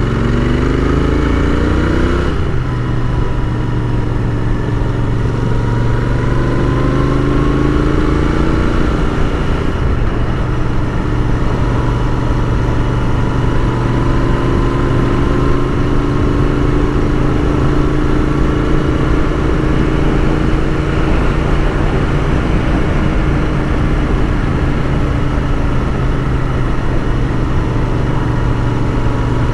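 Royal Enfield Continental GT 650's parallel-twin engine under way, revs rising until a gear change about two seconds in, then cruising at fairly steady revs.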